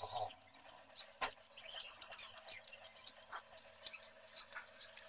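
Boiled potatoes being mashed by hand in a steel plate: soft squishing with scattered light clicks and taps against the metal, a sharper click about a second in and another near four seconds. A faint steady hum lies underneath.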